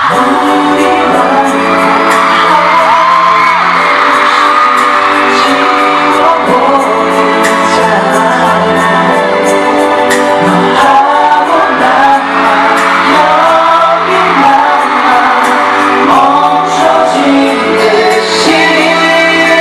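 Live K-pop concert music: a male vocal group singing over a loud amplified backing track with sustained chords, heard from the audience in a large hall.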